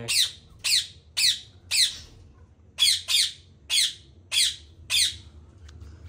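Ring-necked parakeets giving a run of about nine short, harsh screeches, each falling in pitch, with a short pause about two seconds in. These are agitated calls at a strange parakeet brought up to their cage.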